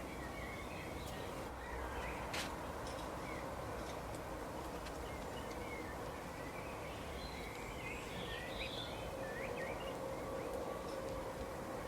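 Woodland birds chirping, with scattered short calls and quick up-and-down whistles over a steady background hiss. A single sharp click comes about two seconds in.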